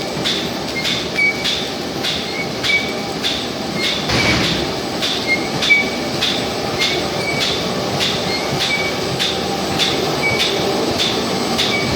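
GDJA 1400 paper roll cutting machine running, with a regular click about twice a second over a steady mechanical noise.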